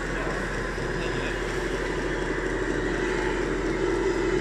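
Steady hum and whine of an RC model hydraulic excavator's pump and hydraulics as it works its boom and bucket, growing a little louder near the end.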